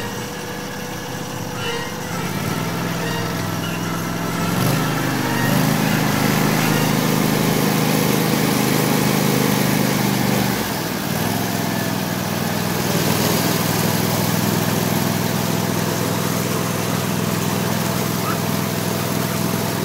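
Argo amphibious ATV's engine running under load as it drives through a pond, its pitch stepping up about two seconds in and again near five seconds, then easing back about ten seconds in and running steady. Water churns and splashes from its spinning tires.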